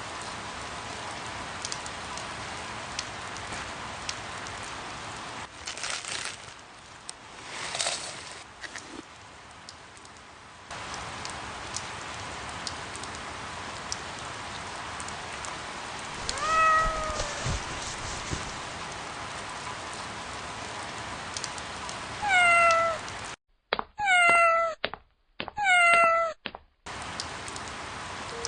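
A cat meowing about four times in the second half, the last three close together, over a steady hiss.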